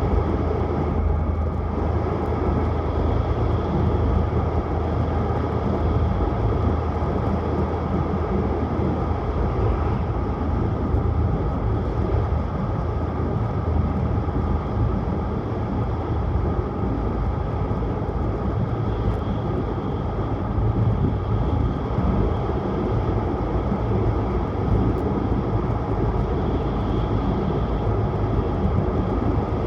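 Steady running noise of a Tohoku Shinkansen Hayabusa bullet train at speed, heard from inside the carriage: an even rumble and rush with a low hum, holding a constant level.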